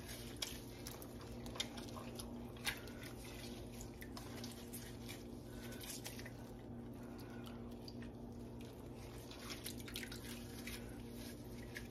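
Faint wet squishing and dripping from a ball of mozzarella curd being worked by hand and dipped in hot whey, with a few sharper drips near the start, over a steady low hum.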